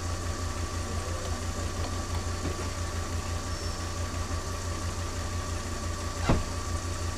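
Volkswagen T4 van's engine idling steadily with a low pulsing hum, and a single sharp click about six seconds in.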